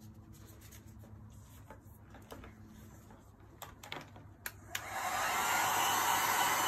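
A few light clicks, then about five seconds in an electric heat gun switches on and runs with a steady blowing whir, used to pop air bubbles in freshly poured epoxy resin.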